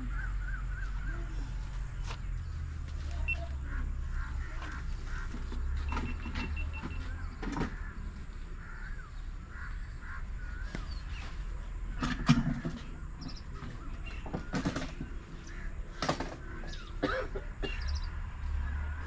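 An old desi diesel engine, a copy of a Ruston, running with a steady low drone, with a few sharp knocks, the loudest about twelve seconds in. Birds chirp over it.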